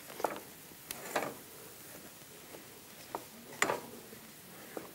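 A wooden spoon stirring mashed sweet potatoes in a pan, with a few soft, irregular knocks of the spoon against the pan; the loudest comes about three and a half seconds in.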